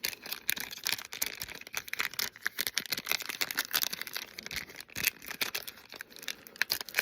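Glossy Topps Chrome trading cards being handled: a busy run of small clicks and rustles as the stiff cards slide and snap against each other.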